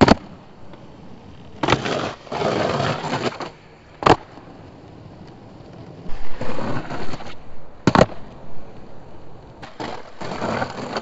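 Skateboard on concrete: the board slaps down hard just after the start, then wheels roll with a rough rumble. It cracks sharply again about four and eight seconds in, with more rolling between. Near the end there is a scraping slide as the nose grinds along a ledge.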